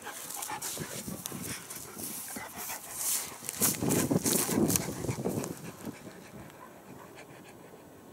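Caucasian Shepherd Dog (Caucasian Ovcharka) panting close to the microphone, loudest a few seconds in, then fading quieter toward the end.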